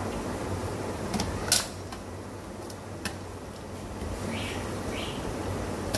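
Sharp clicks of a metal hand lemon squeezer and spoon against a mixing bowl, the loudest about a second and a half in, over a steady hiss. Near the end come two short scrapes as a spoon stirs the grated potato mixture.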